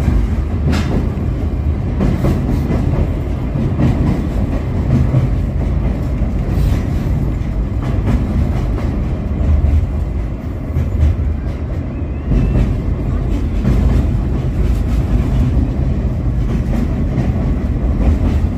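Sagano Romantic Train running through a tunnel, heard from on board: a loud steady rumble of wheels on rail, with a faint click or two.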